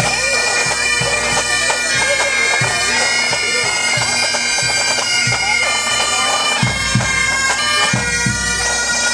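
Pipe band playing on the march: Highland bagpipes, their steady drones under the chanter melody, with a drum beating in time.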